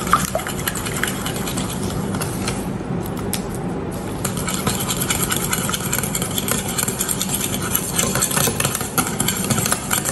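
Wire balloon whisk beating butter, sugar and eggs by hand in a glass bowl: a rapid, steady clatter of the wires against the glass, busier in the second half, over a steady low hum.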